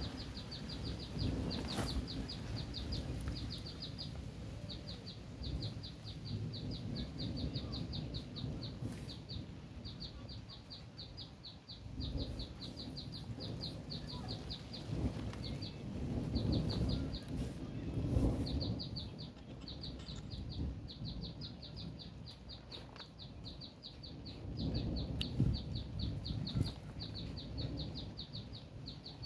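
Electronic buzzer on a homemade time-bomb circuit beeping rapidly, several short high-pitched beeps a second at a steady pitch, in runs with brief pauses. Low rumbling background noise underneath.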